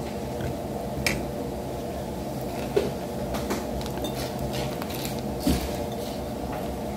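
Eating noodles with plastic training chopsticks from a bowl: four or five short, sharp clicks of the chopsticks against the bowl and each other, over a steady low hum.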